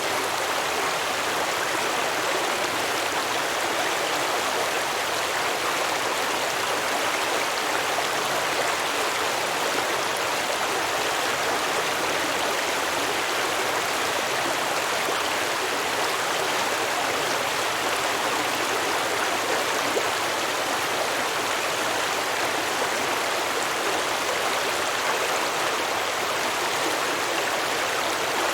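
Stream water flowing and babbling over rocks, a steady even rush.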